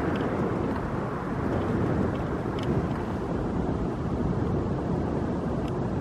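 Steady rumble of road traffic outdoors, with no distinct passing vehicle standing out.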